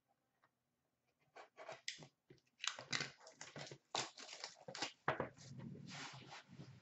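Plastic shrink wrap being torn and crinkled off a sealed hockey card box: after a quiet first second, a run of crackling tears, with one longer crinkle near the end.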